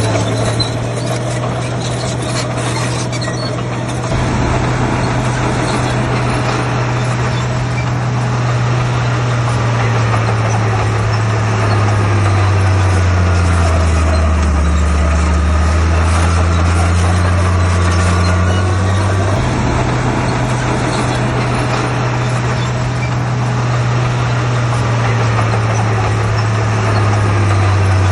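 Heavy diesel engine of construction machinery running under load, its engine speed dropping about twelve seconds in and rising again about seven seconds later, with faint high gliding whines over it.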